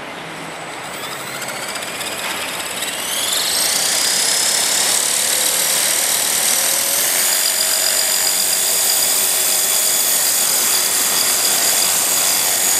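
Electric RC helicopter (CopterX CX450) spooling up. The brushless motor's whine rises in pitch over about two seconds, then holds steady at a high pitch at head speed.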